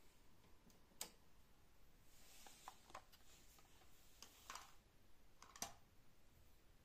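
Power switch of a Pioneer CT-939 cassette deck pressed, switching the deck off: a faint sharp click about a second in, then a second sharp click about four and a half seconds later, with a few fainter ticks between, otherwise near silence.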